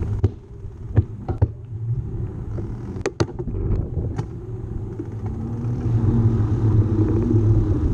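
Bicycle setting off and riding along a concrete path: a low rumble of tyre and wind noise on the bike-mounted camera's microphone. The rumble grows louder and steadier about five seconds in as the bike picks up speed. A few sharp clicks and knocks come in the first few seconds, the loudest pair just after three seconds.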